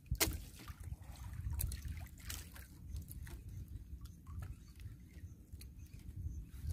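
Water lapping and trickling against the hull of a small boat at sea, over a steady low rumble, with scattered light knocks and splashes.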